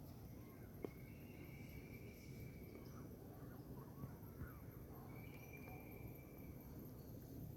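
Faint insect sound, a high thin steady trill like crickets, over a low background hum. Two long level whistling tones, each lasting about one and a half to two seconds, come about a second in and again past the middle.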